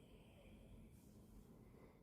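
Near silence between a sleeping Yorkshire terrier's snores, with only faint breath noise.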